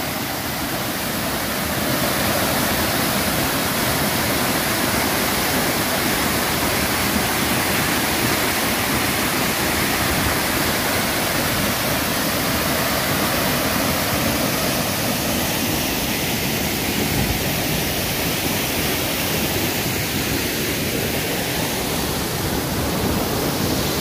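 Waterfall falling into a rock pool: a steady rush of water, a little louder from about two seconds in.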